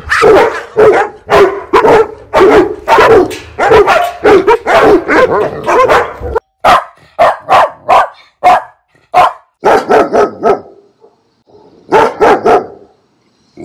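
Dog barking loudly: a fast run of barks about three a second, then after a sudden break fewer, spaced-out barks, with a short pause before a last few near the end.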